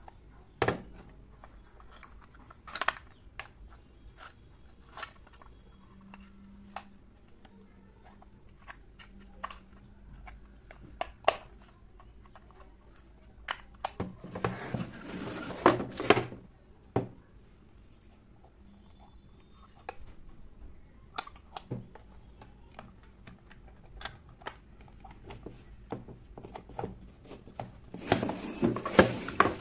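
Small wooden miniature dollhouse kitchen cabinets being handled: scattered light clicks and knocks as the pieces are gripped, tapped and set down on a table, with two longer stretches of rubbing and scraping, one about halfway through and one near the end.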